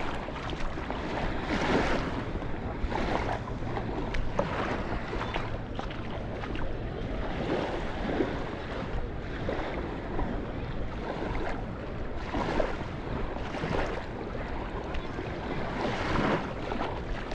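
Beach ambience: small sea waves washing on the shore in soft swells every second or two, over a steady low rumble of wind on the microphone.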